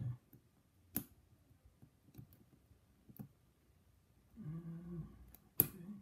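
Small metal clicks of a pin-tumbler lock cylinder being taken apart by hand, a plug follower worked in against a very strong pin spring, with a sharp click about a second in and another near the end. A brief low hum of a voice comes shortly before the last click.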